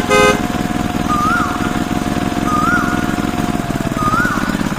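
A small engine running steadily with a fast, even chugging, and a high chirp that sweeps up and back down three times, about a second and a half apart.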